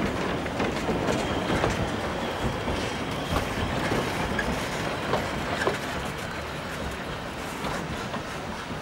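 Narrow-gauge railway coaches rolling slowly past, their wheels clicking over the rail joints, with scattered clanks and a few brief, high wheel squeals over a steady rumble.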